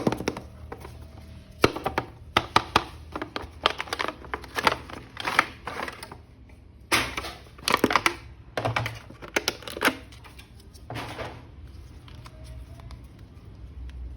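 Plastic toy packaging and action-figure parts being handled: a run of irregular sharp clicks and crinkles, dense at first, coming in clusters later, and thinning out after about ten seconds.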